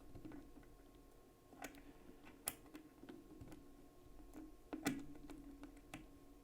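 Faint, irregular clicks and taps of small metal knife parts being handled: the Spyderco Delica's lockback spring and replacement Flytanium scales being worked into place. A sharper click comes about midway and the loudest a little later, over a faint steady hum.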